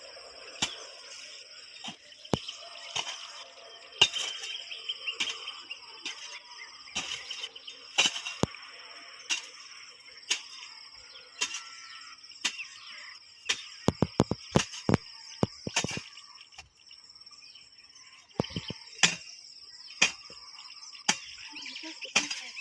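Hand hoe chopping and scraping soil around plants in irregular strikes, with a quick run of about eight strikes midway. Insects trill steadily behind.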